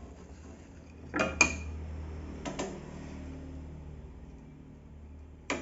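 Metal parts of a belt sander being handled and set in place during assembly: a few hard knocks and clatters, the loudest pair about a second in, another a second later and one near the end.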